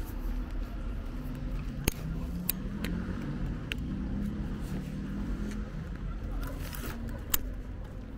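City street ambience with car traffic running, and two sharp clicks, one about two seconds in and one near the end.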